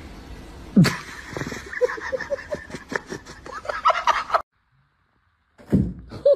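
A bird calling in a quick run of short, warbling notes for about three seconds, cutting off abruptly.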